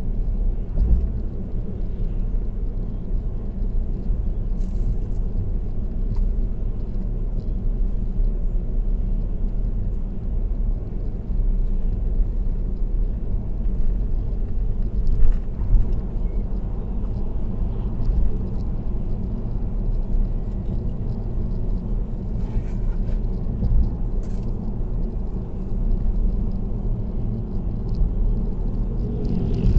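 Steady low rumble of road and tyre noise from a car cruising on an expressway, with a brief tap about halfway through.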